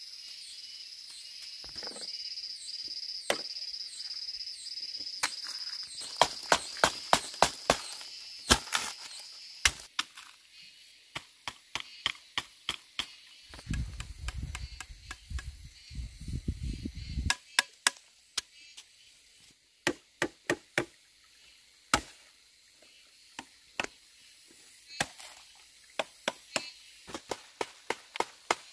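Knife chopping food on a wooden cutting board: runs of quick, sharp knocks, up to about four a second, broken by short pauses.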